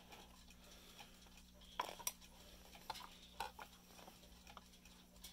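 Faint, scattered clicks and light knocks of a plastic alarm-clock case being handled and turned by hand, over a faint steady hum.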